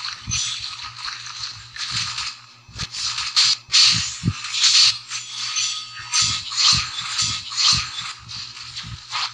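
Crinkling and rustling of a plastic snack bag of chips, in irregular bursts that are loudest around four to five seconds in.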